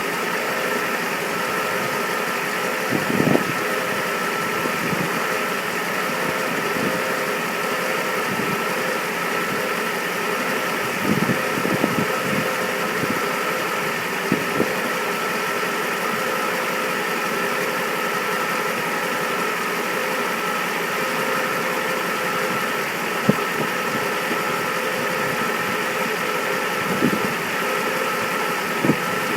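Mercedes-Benz E500 (W124) 5.0-litre V8 idling steadily, with a thin steady whine over the running and a few brief sharp clicks here and there.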